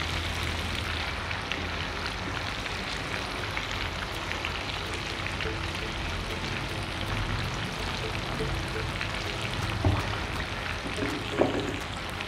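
Chicken and whole tomatoes frying in a deep layer of oil in a karahi: a steady crackling sizzle of bubbling oil. Two brief knocks near the end.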